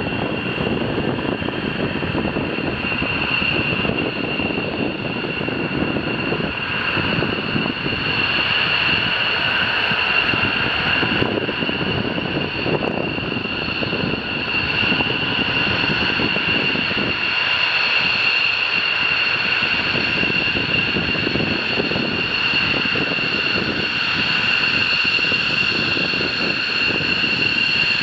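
Jet engines of two fighter jets running at low power as they taxi: a steady high-pitched whine over a rumble.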